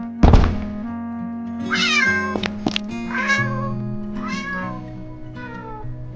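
A loud thump, then a cat meowing about four times, each meow falling in pitch and the later ones fainter, over light plucked-guitar background music.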